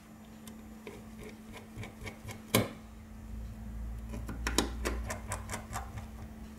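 Small sharp metal clicks and taps as tweezers and a precision screwdriver work the tiny screws and metal brackets inside an iPhone 6 housing. There is one louder click about two and a half seconds in, then a quick run of clicks a little after four seconds, over a steady low hum.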